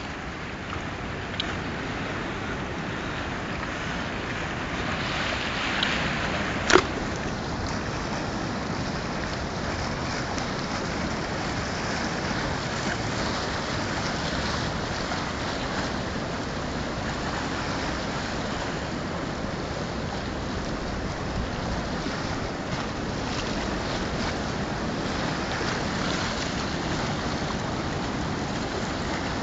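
The Po river in flood rushing steadily, with wind noise on the microphone. A single sharp click about seven seconds in.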